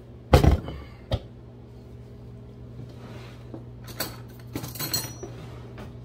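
Square plastic flour canister set down on the counter with a loud thunk about half a second in, then a lighter knock. A few seconds later come a few small clicks and rattles.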